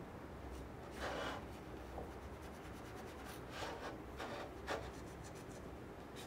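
A paper towel rubbing over the wooden corners of a walnut tray frame in several short wiping strokes, the longest about a second in.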